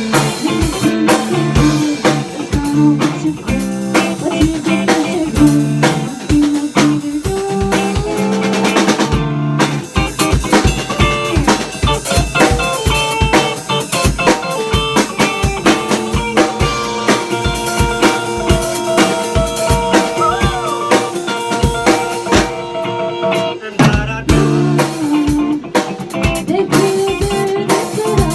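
Instrumental break of a pop-rock band: drum kit keeping a steady beat with bass drum and rimshots under guitar and bass lines. About twenty seconds in, a note bends briefly in pitch.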